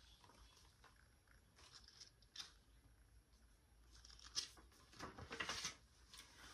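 Faint rustling and soft clicks of a paperback book's pages being handled and turned, the loudest rustle about five seconds in.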